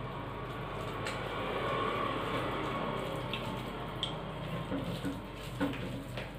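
Hands eating rice from steel plates and bowls, with a few light clinks of steel over a steady rushing background noise.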